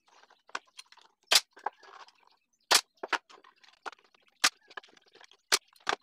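Pneumatic brad nailer firing into a small wooden box, several sharp shots spaced about a second or so apart, with lighter knocks of small wooden pieces being handled in between.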